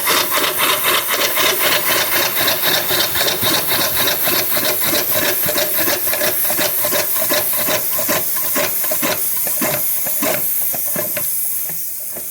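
Circa-1904 Stanley steam car engine running on steam: quick, even exhaust chuffs over a steady steam hiss, about four beats a second, slowing and fading over the last few seconds. It runs, but it's kind of clunky.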